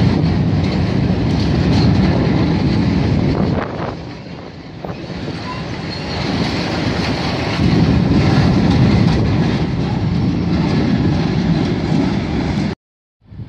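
Freight train of tank wagons rolling past, a loud steady rumble of wheels with clickety-clack over the rail joints. The noise eases briefly partway through, builds again, and cuts off suddenly near the end.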